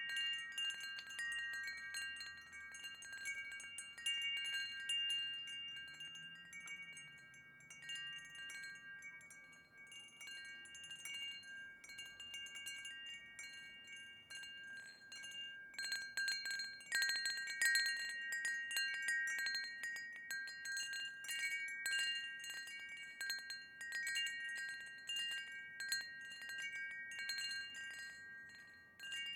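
Wind chime ringing irregularly as it is struck, several clear tones overlapping and fading. The strikes thin out in the middle, then come in a quick flurry a little past halfway.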